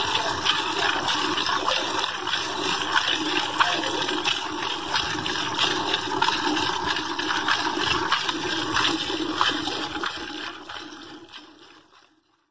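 Water splashing and running steadily, fading out near the end.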